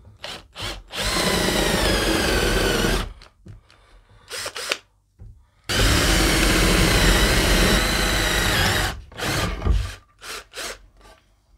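A cordless drill bores holes through a pine board with a 15 mm Forstner bit that is not as sharp as it should be. There are short trigger blips, then two longer runs of steady motor whine and cutting, about two and three seconds long, then more blips near the end.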